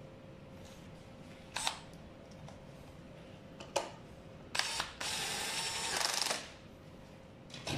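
Two sharp clicks, then a cordless electric screwdriver runs for about a second and a half near the end, driving in a screw that fixes the headlight to the scooter.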